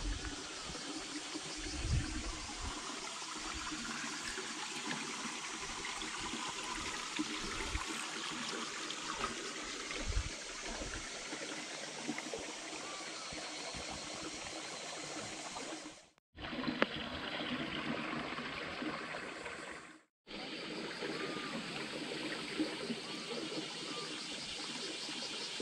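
Water running steadily along a narrow concrete irrigation channel, a continuous trickling stream sound. It drops out briefly twice near the end.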